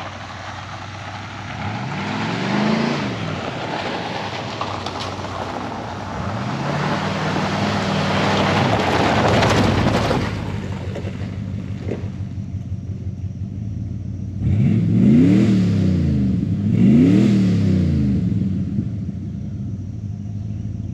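Ford F-150 pickup engine idling and being revved through its exhaust: one rev about two seconds in, a longer rev with a rushing noise from about six to ten seconds, then two quick, sharp revs about fifteen and seventeen seconds in, each dropping back to idle.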